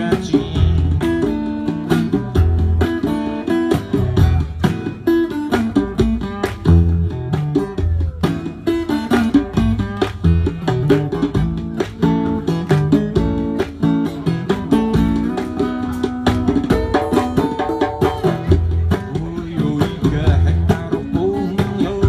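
Acoustic guitar played live, plucked and strummed chords over recurring low bass notes in a steady rhythm.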